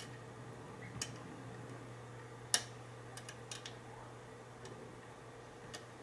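Small, irregular metallic clicks of a steel hook pick working the pins inside a brass Mul-T-Lock Interactive padlock core under tension, the sharpest click about two and a half seconds in, over a steady low hum.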